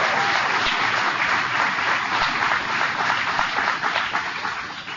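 Crowd applauding: many hands clapping, which dies down near the end.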